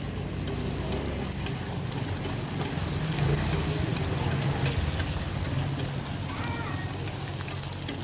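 Paratha or omelette frying in oil on a hot griddle, a steady sizzle, over a low hum of street noise.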